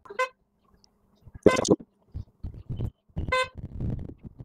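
Three short pitched beeps or toots, the middle one the loudest, with low rumbling and rustling in between.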